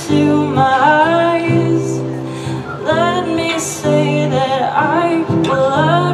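A woman singing while accompanying herself on an acoustic guitar.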